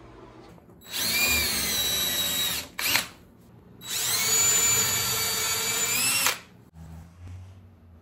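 DeWalt cordless drill running against the top of a wooden door frame in two bursts of about two seconds each, with a short blip between them. Its whine rises in pitch as each burst starts.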